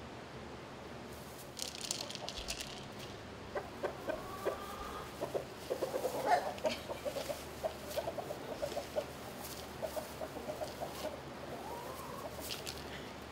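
Chickens clucking in a run of quick short clucks through the middle, with a couple of rising calls, over rustling of dry hay.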